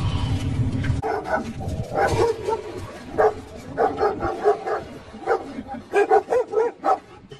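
Dogs barking at each other through a wire mesh fence: many short, rapid, irregular barks. A low rumble fills the first second before the barking starts.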